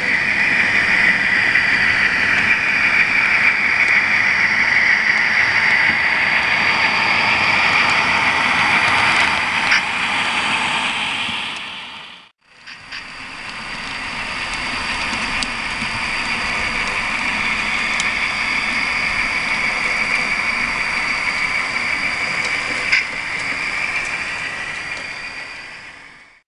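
HO-scale model diesel locomotives running, giving a steady diesel engine drone. The sound cuts out briefly about halfway through and then carries on steadily.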